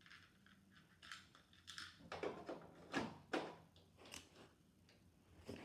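Small plastic dollhouse accessories being handled and set in place: a run of light clicks, taps and rustles, busiest around the middle.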